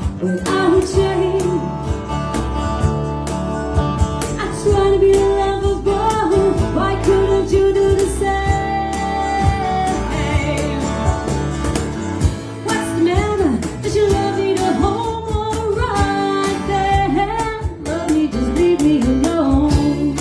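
Band music with guitar and a wavering lead melody line over a steady bass, in an instrumental stretch with no lyrics sung.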